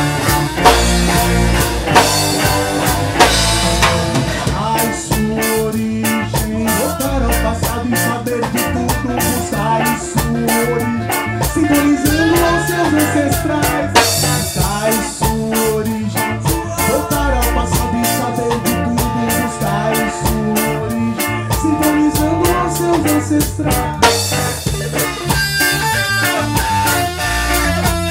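Reggae band playing live: drum kit, bass and electric guitar with a steady beat.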